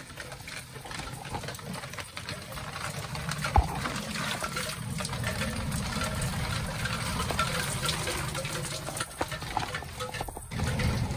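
Heavy rain pouring down, a dense patter of drops with a low rumble beneath it. A single sharp knock stands out about three and a half seconds in.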